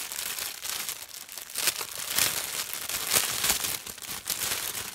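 A plastic packet crinkling and rustling in a run of crackly handling noises as a soft scarf is worked out of it.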